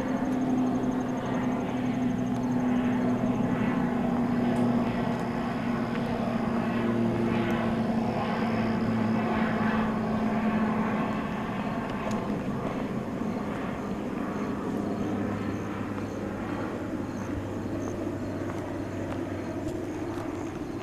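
A steady low engine drone, its pitch sinking slowly over the first dozen seconds and then holding, growing a little quieter toward the end.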